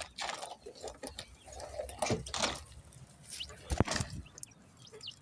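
Hands gathering quail eggs: scattered short rustles and light clicks, with one sharp click just before 4 seconds in.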